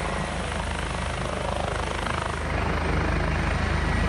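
Helicopter running, a fast even beat of the rotor blades over the steady engine noise, a little louder from about halfway through.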